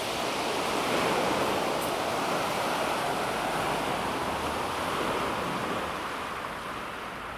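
Calm sea waves washing onto a pebble beach: surf noise that swells about a second in, holds, then eases off near the end as the wash draws back.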